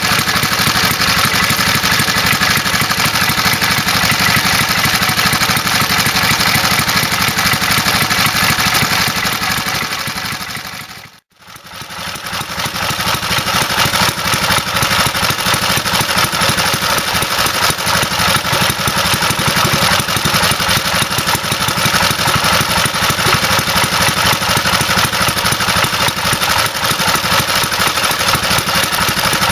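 1930s J.A.P 500cc single-cylinder dry-sump industrial engine running steadily, its exhaust beats coming fast and even. The sound fades out for a moment about a third of the way in and comes straight back the same.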